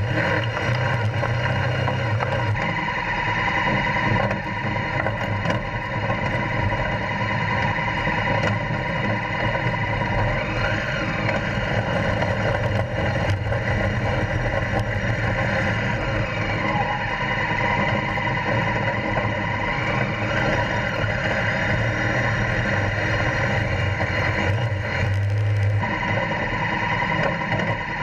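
Honda Africa Twin CRF1000L's parallel-twin engine running as the motorcycle is ridden, its pitch rising and falling a few times as it revs.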